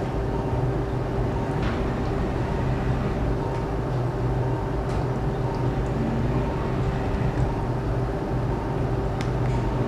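Steady machine hum of operating-room equipment, with a few faint clicks.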